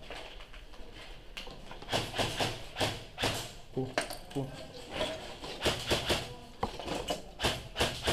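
Footsteps crunching and scraping over rubble and broken tile on a debris-strewn floor, an irregular run of sharp crunches starting about two seconds in.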